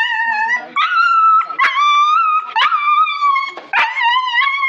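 Dog crying out in about five loud, high-pitched, drawn-out yelps and whines, one after another, while it is held down for treatment of its wound. The cries are a sign of pain or fear at the handling.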